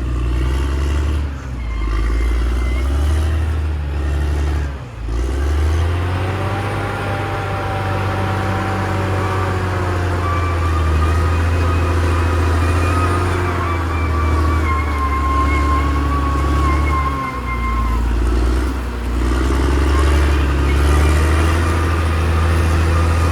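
Caterpillar D6R XL bulldozer's diesel engine running under load, its note rising and falling as it works, with higher tones gliding up and down over it. The engine briefly drops off about five seconds in, then picks up again.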